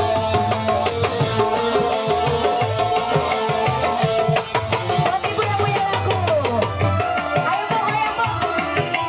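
A live dangdut-style band playing: electronic keyboard melody over a quick, steady beat on kendang hand drums, with some sliding melody notes a little past halfway through.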